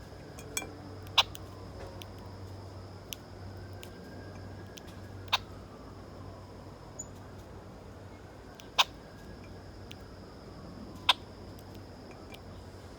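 A songbird giving short, sharp chip calls: four loud ones spaced a few seconds apart, with a few fainter ones between. A steady low hum and a faint steady high tone run underneath.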